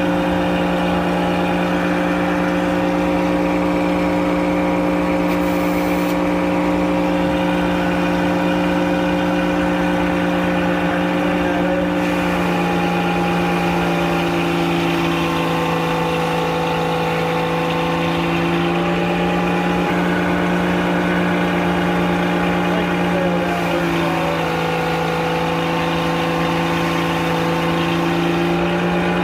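Frick sawmill running steadily with a constant engine-like hum, its pitch shifting slightly about halfway through and again near the end.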